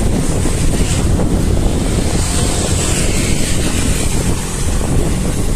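Steady, loud wind noise on the microphone of a cyclist's camera while riding on the road.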